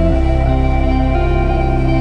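Background music: slow ambient new-age music with sustained tones and a bass chord change near the start.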